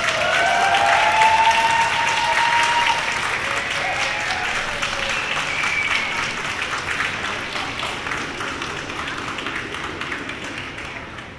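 Crowd applauding, with a few voices whooping and calling out in the first few seconds. The clapping dies away gradually toward the end.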